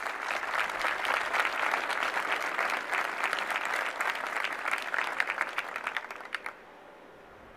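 Audience applauding. The clapping starts right away, holds steady, then thins to a few separate claps and stops about six and a half seconds in.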